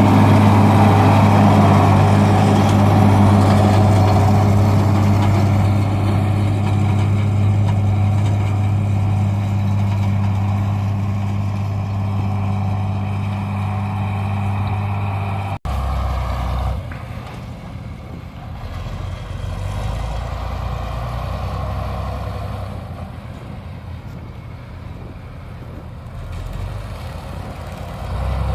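Farm tractor engine running steadily with a strong low hum. About halfway through the sound cuts abruptly to a quieter, deeper engine rumble that rises and falls.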